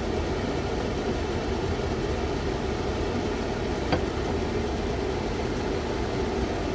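Kitchen extractor fan running with a steady hum, and one light click a little under four seconds in.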